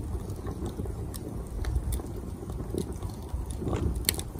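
Wood fire burning in a homemade stainless-steel wood gas stove: a steady low rush with scattered sharp crackles and pops, one louder pop near the end.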